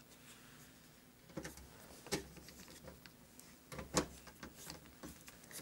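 Faint clicks and taps of a hand screwdriver and a small screw against the Schiit Freya preamp's metal rear panel as the screw is set and turned in by hand. A few separate taps, the loudest about four seconds in.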